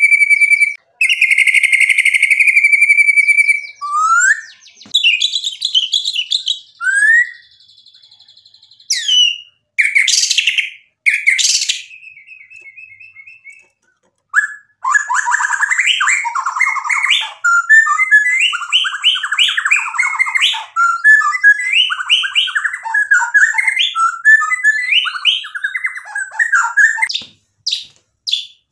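White-rumped shama singing. It opens with a long, steady whistle, then gives rising glides and a few sharp notes. From about halfway it breaks into a fast, varied run of phrases that keeps jumping in pitch, with short notes near the end.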